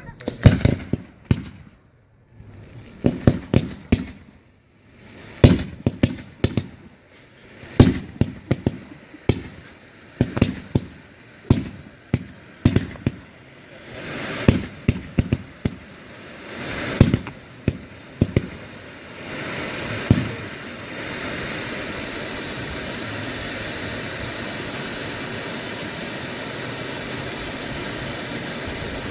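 Aerial firework shells bursting in quick clusters, loud sharp bangs one after another with crackle between them. About twenty seconds in the bangs stop and give way to a steady, even hiss-like noise.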